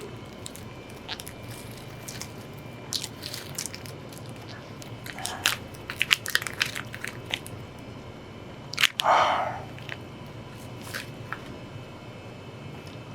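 Eating sounds: a person biting and crunching food in scattered crisp clicks, thickest about five to seven seconds in, with a louder noisy burst about nine seconds in, over a steady low hum.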